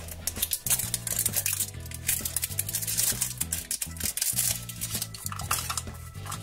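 Clear plastic shrink wrap crinkling and crackling as it is peeled off a small plastic toy capsule, with quick clicks of hard plastic being handled, over background music with a repeating bass line.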